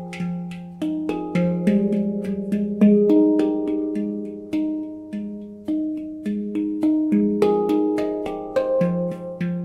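A 10-note nitrided handpan in F Pygmy being played by hand: a run of struck notes, each ringing on and overlapping the next, with a few quick flurries of strokes.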